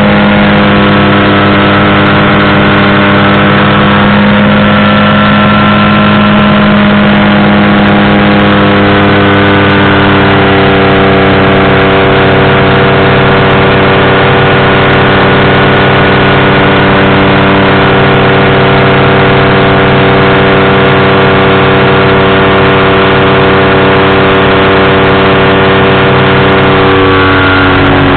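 Powered parachute's engine and propeller running loud and steady, close to the microphone, its pitch shifting slightly about four seconds in and dipping near the end as the throttle changes.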